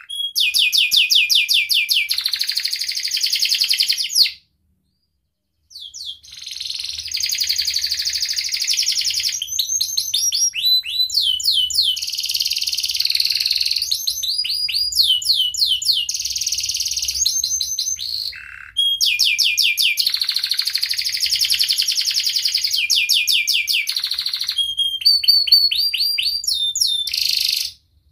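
Domestic canary singing in full song: long rolling trills of fast repeated high chirps. There is a pause of about a second and a half some four seconds in, a brief break about two-thirds of the way through, and the song stops just before the end.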